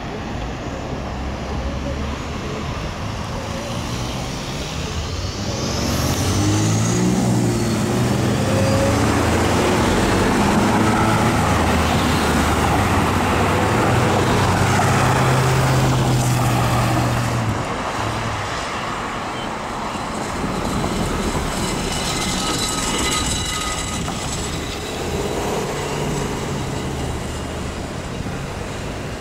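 Road traffic passing through an intersection. A heavy vehicle's engine pulls away, climbing in pitch in steps about 6 to 9 seconds in and staying loudest until it drops off about two-thirds of the way through. Lighter car and tyre noise follows.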